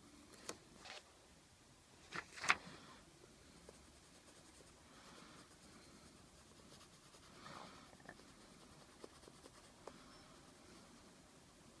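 Colored pencil scratching on paper in short, faint strokes, with a few sharper knocks; the loudest knock comes about two and a half seconds in.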